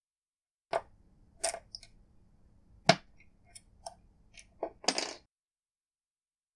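Small sharp metallic clicks and taps of Allen keys against a steel nut as it is lined up and pushed into the hex pocket of a 3D-printed plastic insert. About eight irregular clicks, the loudest about three seconds in, with a short scrape near the end.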